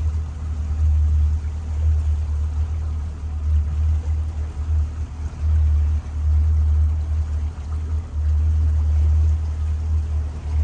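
Wind buffeting the microphone on a moving river boat: an uneven low rumble that dips and surges, over a faint rushing hiss of air and water.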